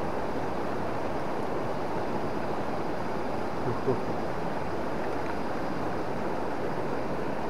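Swollen river in flood after heavy rain, its fast water rushing steadily.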